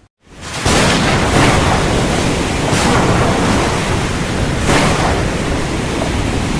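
Loud, steady rushing noise that starts about half a second in and swells a few times, the kind made by surf or strong wind.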